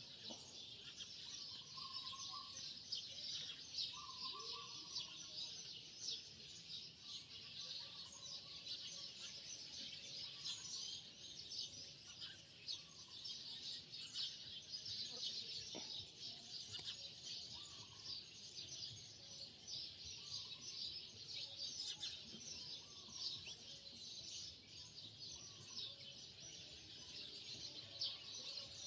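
Faint, steady chirping of many birds, with a short lower call repeating about every two seconds.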